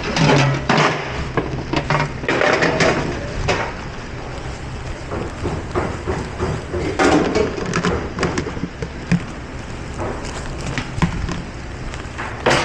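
Dishes and kitchenware clattering and knocking as they are handled in a dish pit, over the steady low hum of kitchen machinery.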